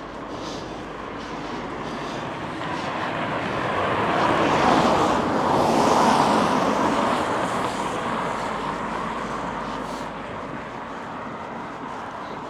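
A vehicle passing by, a rushing noise that swells to a peak about five or six seconds in and then fades away.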